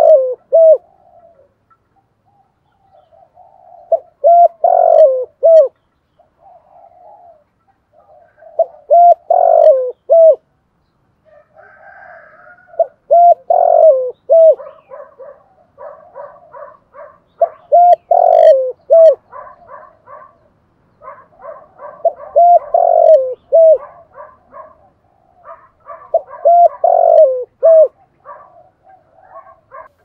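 Spotted dove cooing its song: a phrase of several short coos ending in a longer, lower one, repeated about every four to five seconds, seven times. Fainter, quicker notes from other birds run behind it.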